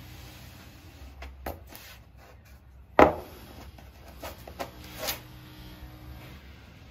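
Hands rubbing and pressing masking tape down along a windsurf board's rail, with soft scrapes and clicks. A single sharp knock about three seconds in, the loudest sound, fits the tape roll being set down on the board, and smaller clicks follow.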